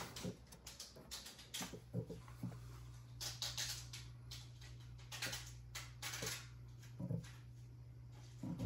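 A NAS starting up with its hard drives spinning: a steady low hum, with irregular small clicks and a few short rustles over it.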